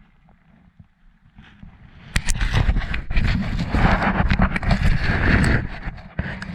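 A run of rapid, close knocks and scraping over a low rumble on a small boat, starting about two seconds in and stopping near the end, as things are handled right after a snapper is landed.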